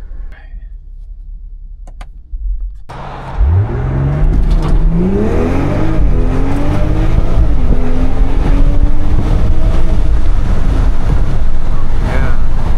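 BMW X3 M40i's turbocharged 3.0-litre B58 straight-six, fitted with a downpipe and titanium Valvetronic exhaust and running an MHD Stage 2+ tune, heard from inside the cabin: a low idle for a few seconds, then hard acceleration with the pitch climbing, dropping at two upshifts, and pulling on steadily over road noise.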